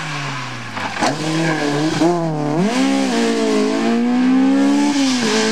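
Opel Kadett C Coupé rally car's four-cylinder engine revving hard through gear changes, its pitch dropping and climbing again several times, with a sharp crack about a second in. It then holds high and steady and grows louder, from about three to five seconds in.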